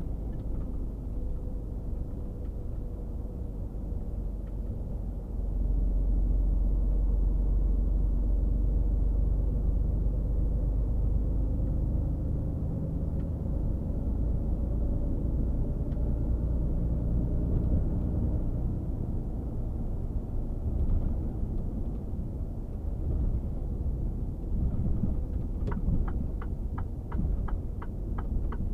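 Mercedes-Benz Actros 1848 truck heard from inside the cab at highway speed: a steady low rumble of the diesel engine and road noise, which grows louder about five seconds in. Near the end a fast, regular ticking starts, about three ticks a second.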